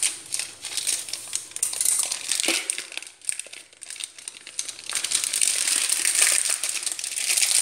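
Foil-lined wrapper of a dark compound chocolate slab crinkling as it is opened by hand. It goes quieter for a moment in the middle, then crinkles steadily through the second half.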